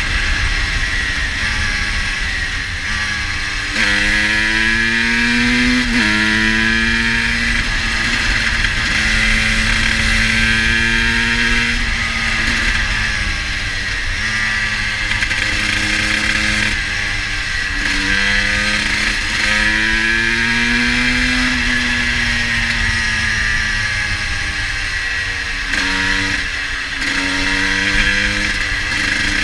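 GasGas EC 250 single-cylinder two-stroke engine under way, revving up through the gears with sharp pitch drops at each shift, then easing off and pulling again.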